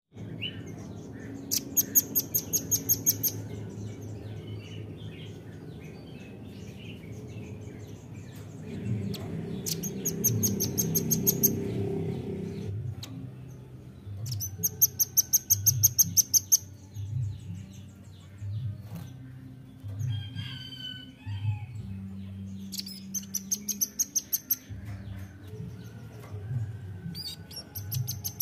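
Velvet-fronted nuthatch (rambatan) song: rapid, high, sharp trills of about eight notes a second, each lasting about two seconds and repeated every six to eight seconds, with softer chirps between. A low hum with soft pulses runs underneath.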